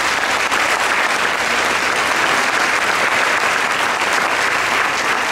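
An audience applauding, a dense steady clapping that runs on without a break.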